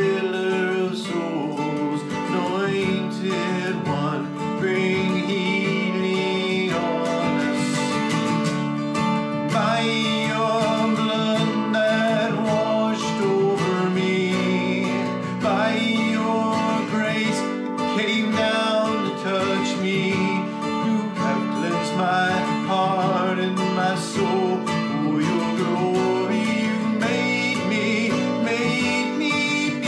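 Acoustic guitar played steadily under a man's voice singing a slow worship song.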